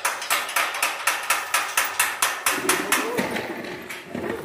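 Ratchet wrench clicking rapidly, about five or six clicks a second, as bolts are tightened on aluminium stage truss sections. The clicking grows fainter after about two and a half seconds.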